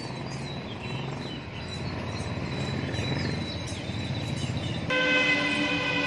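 Steady background noise, then about five seconds in a loud, steady horn blast with several pitches sounding together starts suddenly and holds.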